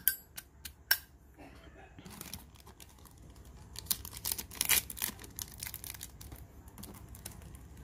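Hands handling a Zippo lighter: three sharp clicks in the first second, then several seconds of crinkling, rustling handling noise.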